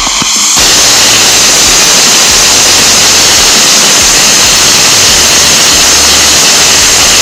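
Homemade rocket engine firing on a static test stand: a very loud, steady rushing noise of exhaust. It builds up over the first half second, then holds even.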